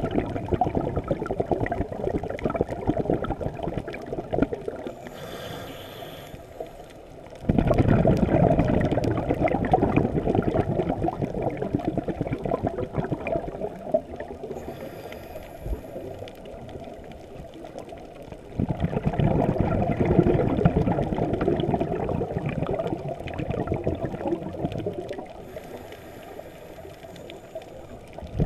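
Muffled underwater sound through a GoPro housing of a scuba diver breathing. A faint hiss of an inhale through the regulator comes before a sudden rush of exhaled bubbles that fades away, repeating about every eleven seconds.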